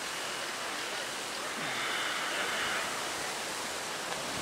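Steady, even hiss of outdoor background noise with no distinct event; it swells slightly around the middle.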